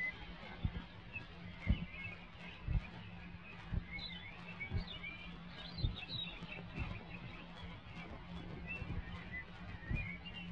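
Small birds chirping and twittering over a steady low hum, with dull thumps about once a second.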